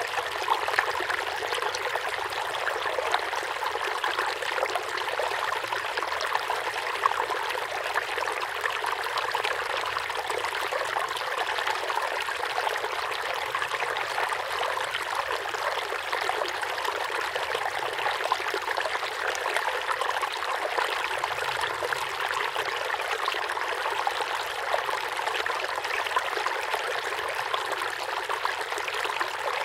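Water running and trickling steadily, an even splashing flow with no breaks.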